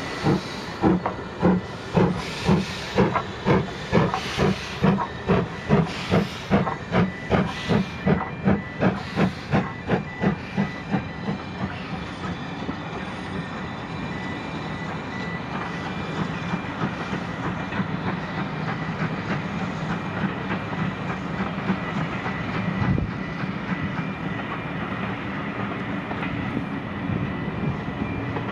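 Steam locomotive working a passenger train, its exhaust beats coming about two a second and weakening over the first twelve seconds or so, then giving way to the steady rumble and hiss of coaches rolling along the rails.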